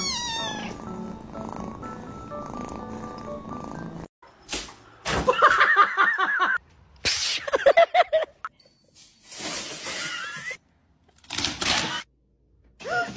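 Soft music with a kitten purring for about four seconds. After a sudden break, cats yowl in loud, wavering, drawn-out calls twice, followed by shorter cries and scuffling noises.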